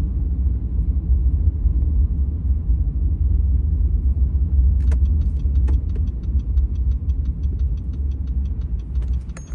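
Steady low rumble inside the cabin of an all-wheel-drive car driving on snow-packed road. About five seconds in, a fast, even ticking starts: the car's turn signal clicking.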